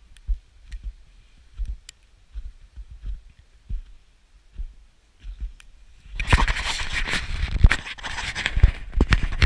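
Handling noise: a few soft knocks, then about six seconds in a loud run of rustling and scraping close to the microphone, with many sharp clicks.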